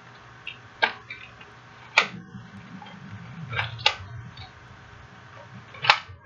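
Handling noises of a fidget spinner being packed into a small box: a few scattered sharp clicks and light knocks, with low rustling between them.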